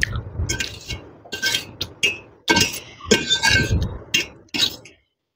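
Eating utensils clinking and scraping against a dish of noodles: a close, uneven run of sharp clinks and knocks that stops shortly before the end.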